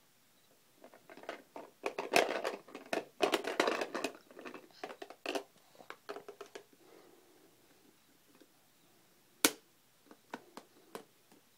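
Plastic toys and a plastic shape-sorter jar being handled by a baby: a run of clattering and rattling in the first half, then one sharp click about nine and a half seconds in and a few light taps after it.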